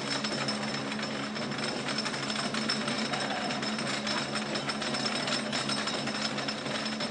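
Wooden roller coaster train climbing the chain lift hill: the lift chain and anti-rollback dogs make a rapid, steady clatter over a steady hum.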